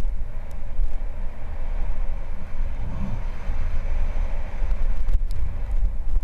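Wind buffeting the helmet-mounted camera's microphone as a downhill mountain bike rolls fast over a dirt and grass ski run, with the hum of the tyres on the dirt and a few sharp rattles of the bike over bumps, one cluster a little after five seconds in.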